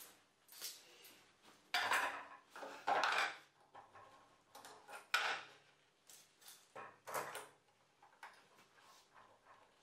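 Steel bar clamps being slid into place and tightened on a glued wooden edge: a series of irregular metal clanks and scrapes, loudest about two and three seconds in.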